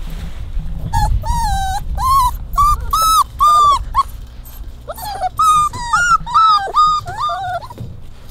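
A puppy whining: a run of about a dozen short, high whimpers that rise and fall, starting about a second in.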